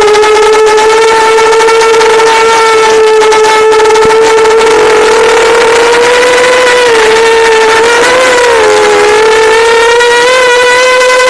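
Brushless motors of a PID-tuned multirotor drone whining at a nearly steady pitch, wavering slightly with a few brief dips in the later seconds. The owner hears it as a bad motor sound and suspects frame resonance, PID tuning or the motors themselves.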